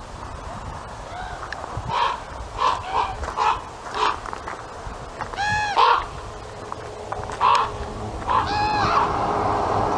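Common raven calling: a quick run of short calls about two seconds in, a longer drawn-out call past the middle, and a few more calls near the end. A steady rushing noise comes up underneath near the end.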